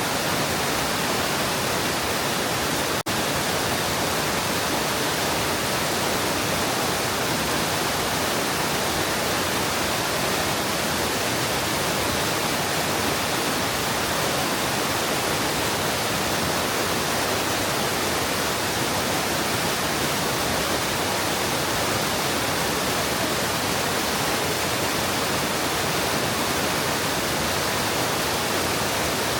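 Mountain stream water rushing steadily over rocks, an even, unbroken rushing noise, with a momentary dropout about three seconds in.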